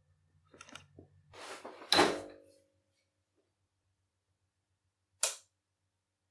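Handling noises from small tools and parts: a few light clicks and a rustle, then a sharp knock about two seconds in, and one more sharp click about five seconds in.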